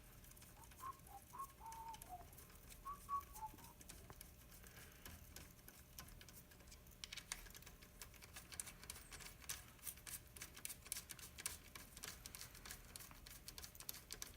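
Near silence with a few faint high chirps about a second in, then from about the middle onward many faint, quick light clicks and taps.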